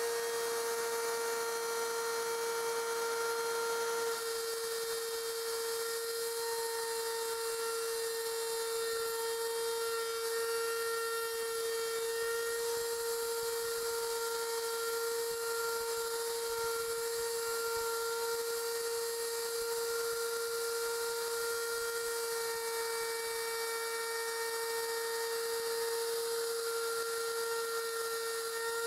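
Wood router with a pattern bit running at a steady speed, a continuous high whine, as it routes out a door hinge mortise guided by a hinge mortise jig.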